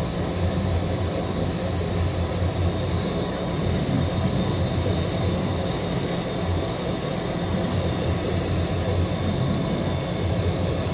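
Aeon Nova 10 CO2 laser cutter running a vector cut at 400 mm/s: a steady machine hum with a high whine as the stepper motors drive the head around the curves. It runs smoothly, with no thumps of skipped steps.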